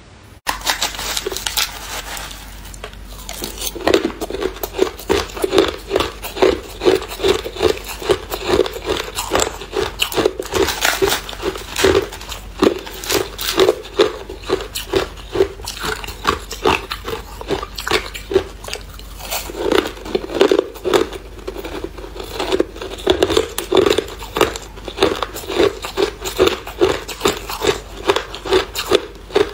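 A person biting and chewing hard, clear ice close to the microphone: sharp crunches and cracks over a steady chewing rhythm of about two to three chews a second.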